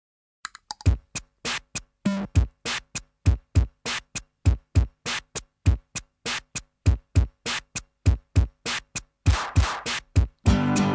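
Music: the intro of a rock song, a dry drum-machine beat of separate kick and snare hits with gaps between them. About nine seconds in, a cymbal wash comes in, and near the end the full band enters with bass and guitar chords.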